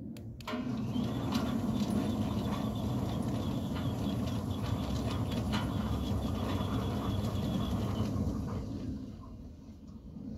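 Centurion D5 Evo Smart sliding gate motor driving the gate along its rail: a steady hum and rolling rumble that starts about half a second in after a couple of clicks and eases down to a stop near the end. The motor is freshly installed and runs smoothly, without vibration.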